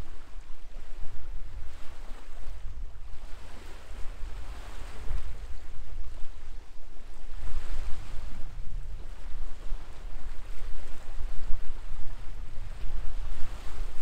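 Wind buffeting the microphone: a heavy, uneven low rumble throughout, with a rushing hiss that swells and fades.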